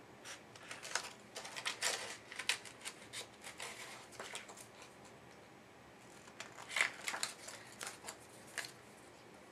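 Scissors snipping paper in a run of short cuts, with a lull in the middle and a few more snips later. The cuts shape the scarf ends for a paper snowman.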